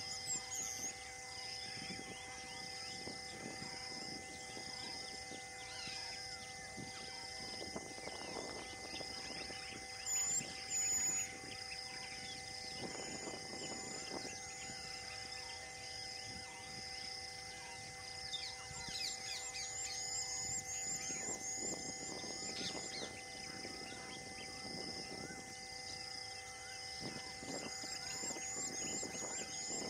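Wild scrubland ambience: a high insect call pulsing steadily, birds giving quick repeated high chirps in the second half, and two short, louder high bird calls about ten seconds in, over faint intermittent rustling.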